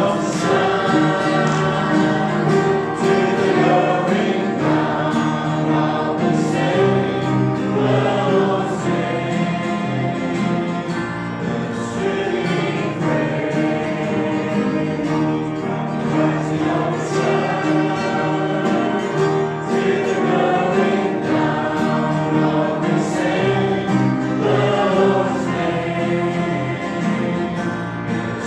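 A congregation or choir singing a gospel hymn together with instrumental accompaniment, steady throughout.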